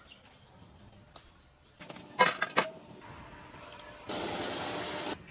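A few sharp clicks and knocks, the loudest sounds, then hands swishing freshly picked leaves in water in a stainless-steel basin, with a steady rush of water for about a second near the end that cuts off suddenly.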